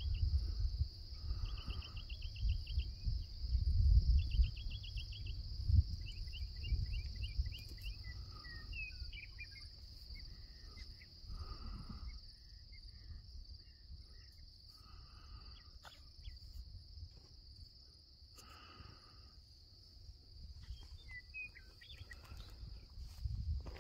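Steady, high-pitched insect chorus, typical of crickets, with short bird chirps and trills scattered through it, the busiest in the first ten seconds. A low rumble sits underneath, strongest in the first six seconds.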